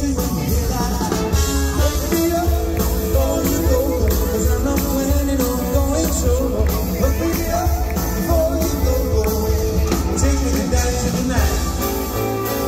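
Live band playing retro swing and rock 'n' roll, with a singer's voice over a steady beat and strong bass.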